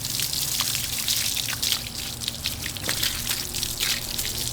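Running water spraying and splashing irregularly as a wet dog is washed down, with a steady low hum underneath.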